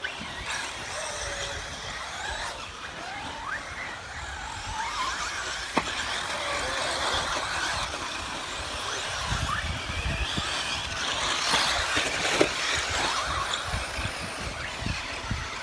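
Electric radio-controlled trucks and buggies racing on a dirt track: high motor whines gliding up and down as they accelerate and back off, with tyre hiss on the dirt. There is a single sharp knock about six seconds in and another near twelve seconds.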